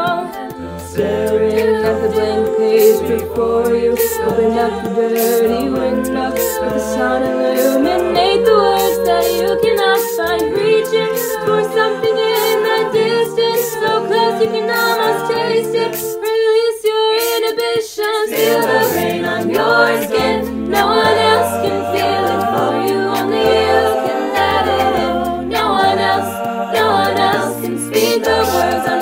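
Mixed male and female a cappella group singing in close harmony, with a sung bass line under the chords and a steady vocal-percussion beat. About two-thirds of the way through, the low voices drop out for a moment before the full arrangement comes back in.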